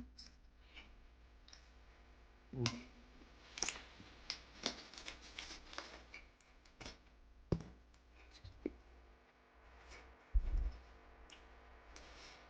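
Scattered small clicks and light knocks from someone eating slider sandwiches and handling them, with a dull low thump about ten seconds in.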